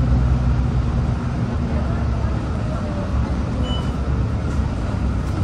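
Steady low drone of a city bus's engine and road noise, heard from inside the moving bus.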